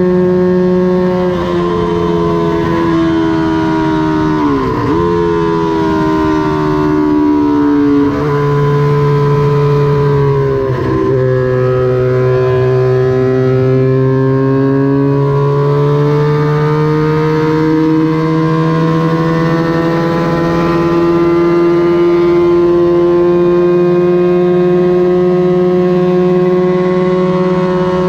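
Small vintage Honda parallel-twin racing motorcycle engine running hard at high revs. Its pitch dips sharply and climbs back twice, about five and eleven seconds in, then rises slowly and steadily through the rest.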